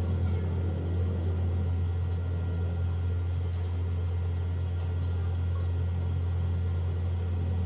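A steady low hum with faint background hiss.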